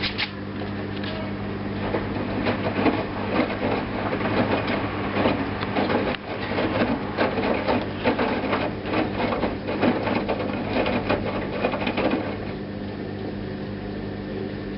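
Hoover washing machine running mid-programme: a steady mains hum under a spell of clattering, churning drum noise that starts about two seconds in and dies away near the end.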